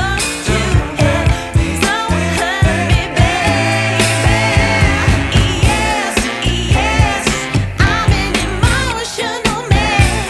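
Background music with singing over a strong, regular beat.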